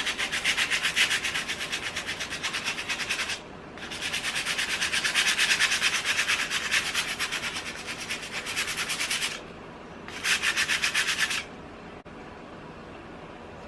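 220-grit sandpaper rubbed by hand in quick back-and-forth strokes over a chalk-painted surface, distressing the paint. It comes in three bouts, the middle one longest, with short pauses between.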